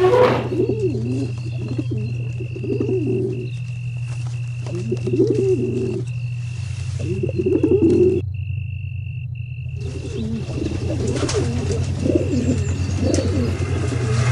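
Eerie horror background score: a steady low drone under a high held tone, with groups of low, wavering warbles every couple of seconds.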